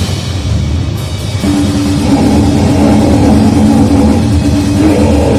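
Loud, distorted noise music with a dense wash and heavy low end; about a second and a half in it gets louder as a steady low droning tone joins.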